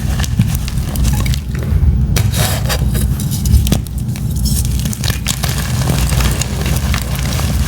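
Blocks of powdery chalk being crushed close to the microphone: dense, irregular crunching and crackling made of many small sharp cracks, over a steady low rumble.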